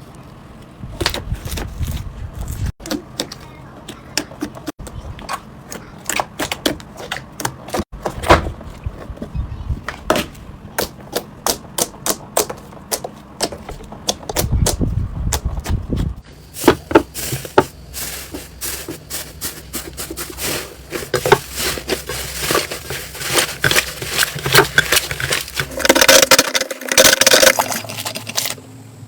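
Crunchy slime being pressed and squeezed by hand, giving runs of sharp crackles and pops that get denser near the end.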